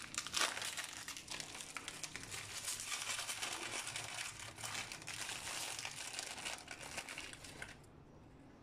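Plastic biscuit packet crinkling and crackling as it is handled, stopping about a second before the end.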